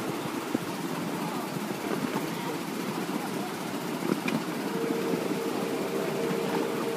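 Miniature ride-on railway train running along the track: a steady rumble of wheels on rail with many small rapid clicks. About five seconds in, a steady humming tone joins.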